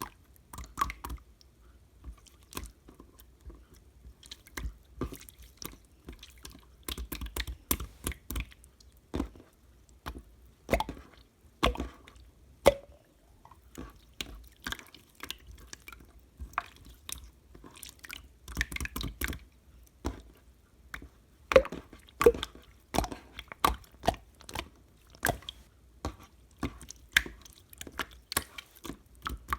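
Slime being squeezed, stretched and poked by hand: irregular sticky pops and wet clicks, sometimes several a second, with a few louder pops about two-thirds of the way through.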